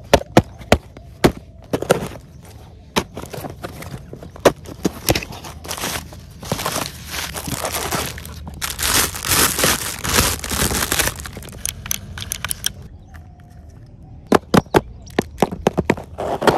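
Cardboard boxes and plastic wrapping being handled and torn open: sharp snaps and cracks of cardboard flaps and tape in the first few seconds and again near the end, and a long stretch of plastic wrap crinkling in the middle.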